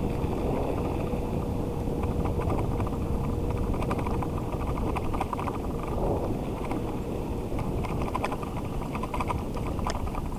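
Dog scooter rolling along a wet trail behind a team of Alaskan huskies: a steady rolling rumble with wind on the microphone and scattered light ticks and clicks, plus a faint steady hum over the first four seconds.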